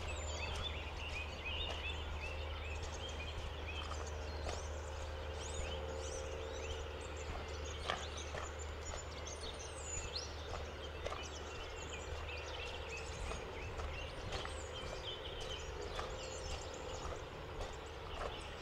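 Small birds chirping and twittering over a steady outdoor background, with a walker's footsteps as light scattered knocks. A low steady rumble sits under it and drops away about two-thirds of the way through.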